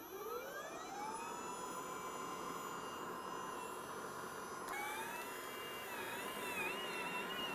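Allett Stirling battery cylinder mower with a verticut cartridge: the motor spins up the star-shaped blade reel with a rising whine over the first second, then runs at a steady whine. About five seconds in, the pitch starts to waver and a hiss joins as the blades cut into the turf and throw thatch into the grass box.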